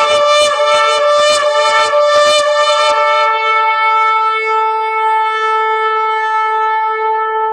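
Shofar blown in quick pulsed notes, about four a second, then from about two and a half seconds in a single long held note that slowly fades.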